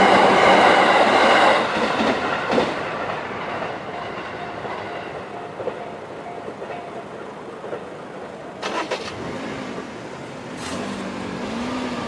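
JR 211 series electric train passing over the level crossing, its wheels clattering on the rails. It is loud for the first second and a half, then fades away. Near the end, a car engine starts up as traffic moves over the crossing again.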